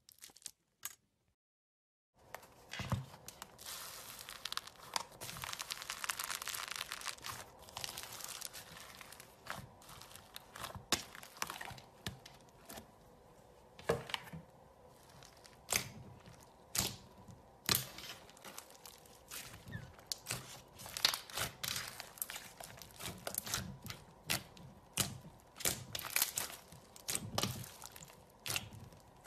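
Green slime studded with foam beads being squeezed and kneaded by hand, starting about two seconds in. It gives a dense crackle at first, then a run of separate sharp pops and clicks.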